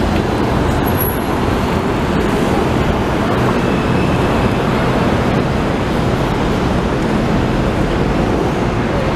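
Steady, loud city street traffic noise: vehicle engines and tyres.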